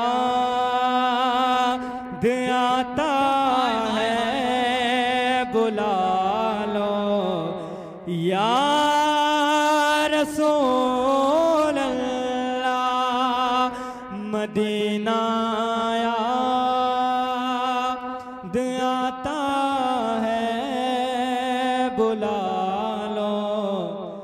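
Solo male voice singing a naat, an Urdu devotional poem, drawing out long held notes with ornamented turns and a few short breaks for breath.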